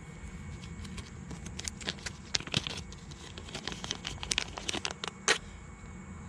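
Small plastic parts bag crinkling as it is handled: a run of sharp crackles, the loudest a little after five seconds in.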